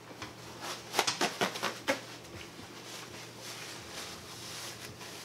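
Paper napkin crinkling and rustling as it is handled and pressed to the face. There is a quick run of sharp crackles about a second in, then softer rustling.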